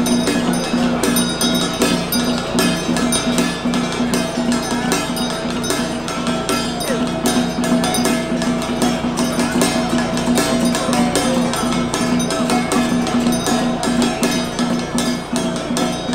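Taiwanese temple ritual music: a gong and drum beaten in rapid, continuous strikes over a steady sustained drone, accompanying a Taoist boundary-setting rite.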